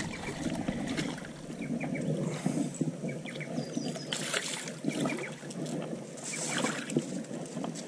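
Water splashing and sloshing at the edge of the bank, irregular, with a few louder splashes spread through, as a hooked bass is drawn in to be landed by hand.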